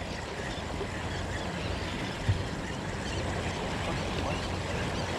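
Small waves washing against jetty rocks: a steady wash of surf, with one short knock a little over two seconds in.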